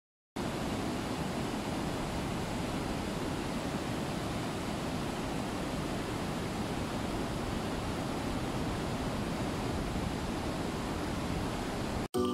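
Steady rush of a shallow mountain river running over rocky rapids. It cuts off abruptly near the end.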